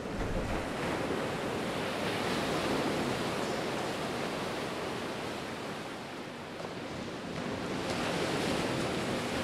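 Sea surf washing against the rocks of a jetty: a steady hiss that swells gently twice.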